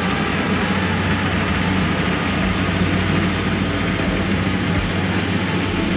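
Rice combine harvester's diesel engine running steadily as the machine cuts through the paddy, a constant low hum under a wash of machine noise.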